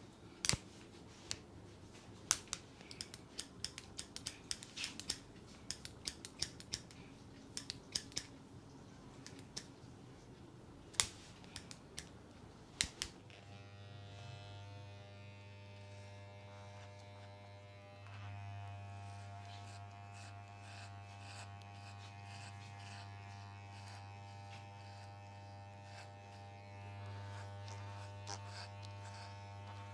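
Barber's scissors snipping hair in quick irregular clicks for about the first thirteen seconds. Then an electric hair trimmer is switched on and buzzes steadily, growing a little louder about 18 seconds in.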